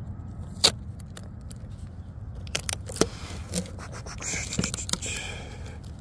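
Handling noises from a carbon fiber RC outrigger boat and its hatch tape: a sharp click about half a second in, a few lighter clicks and knocks, then a longer rasping scrape from about four to five seconds.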